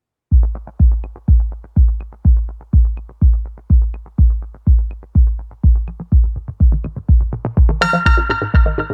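Electronic background music with a steady kick-drum beat, about two beats a second. Bright synth chords join near the end.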